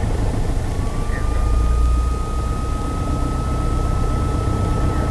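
Steady low drone of a small single-engine plane's engine and propeller in the cockpit, with a faint thin whine that starts about a second in and rises slightly in pitch.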